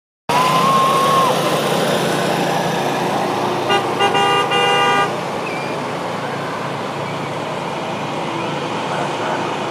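Vehicle horn honking: two quick taps about four seconds in, then two longer blasts lasting about a second together, over a steady wash of traffic and street noise.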